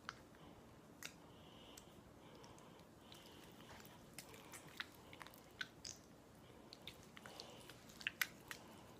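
Faint, sparse sticky clicks and small squishes of homemade slime being handled and kneaded.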